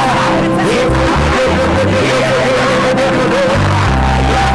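Worship music with a stepping bass line under a long, wavering melody note; the melody moves up to a higher held note near the end.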